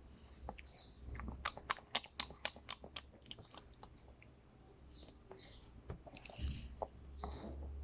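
Biscuits being crunched and chewed: a quick run of crisp crunches about a second in, roughly four a second, then slower, scattered bites.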